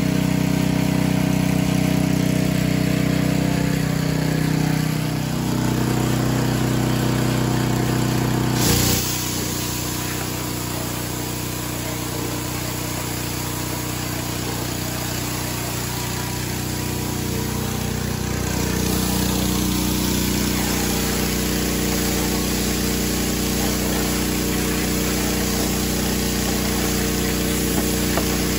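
A pressure washer running steadily: its motor hums under the hiss of water jetting from an undercarriage-cleaner spray bar against a riding mower's deck and the wet pavement. The sound changes abruptly about 9 seconds in and again about 18 seconds in.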